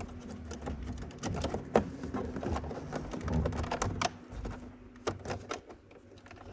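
Small handsaw cutting the plastic dash panel in short, irregular scraping strokes, its teeth catching and clicking; the strokes thin out after about four seconds.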